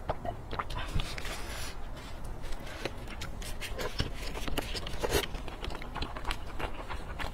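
Close-miked mukbang eating sounds: swallows from a glass mug, then wet chewing and lip-smacking on fatty braised pork, with irregular sticky clicks and squelches throughout.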